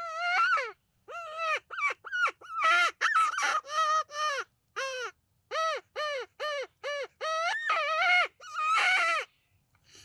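Coyote yips and short howls: a quick run of pitched calls, each rising and falling, with a few longer howls among them, stopping just before the end.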